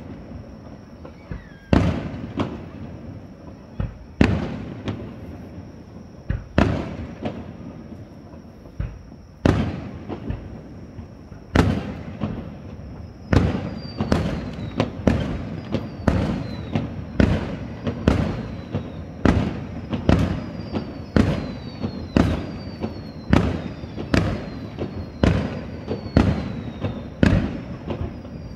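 Aerial firework shells bursting in a long series of booms, each trailing off in an echo. The bangs come every second or two at first, then follow each other faster, about two a second, in the second half.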